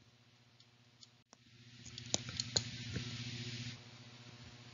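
Faint low hum and hiss lasting about two seconds in the middle, with a few soft clicks in it. The rest is near silence.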